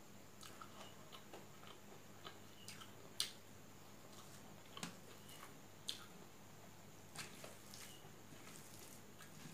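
Quiet eating sounds: chewing and mouth smacks, with fingers squishing rice and dal together by hand. They come as a scattered string of soft clicks, the sharpest about three seconds in.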